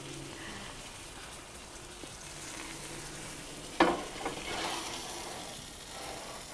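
Strip steak sizzling in a hot Lodge cast iron skillet: a steady frying hiss, with a single clunk a little under four seconds in.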